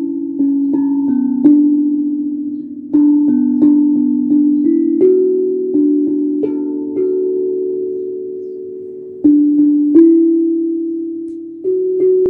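Steel tongue drum struck with mallets, playing a slow melody of single notes that ring on and overlap. About halfway through one note is left to ring for nearly three seconds before the playing picks up again.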